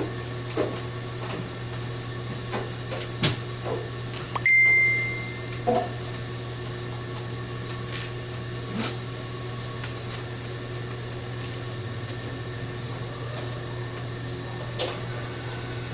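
Heidelberg offset printing press with a steady low hum, while hands working inside the machine make scattered clicks and knocks. One short high beep sounds about four and a half seconds in.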